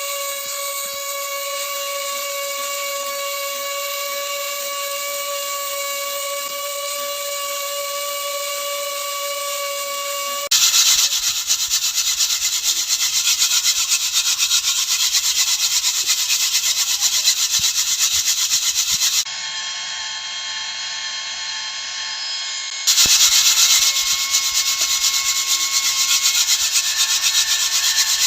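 A small motor whining at one steady high pitch. About ten seconds in, it cuts abruptly to a louder rasping, sanding-like rubbing. Near the end there is a brief stretch of a different steady whine, then the rasping again.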